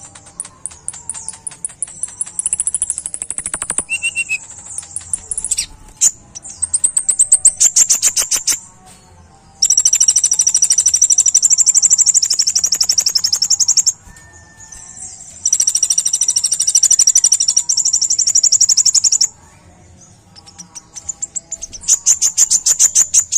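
Male Van Hasselt's sunbird (kolibri ninja) singing very high, rapid-fire trills in several bursts of two to four seconds, with short pauses between them.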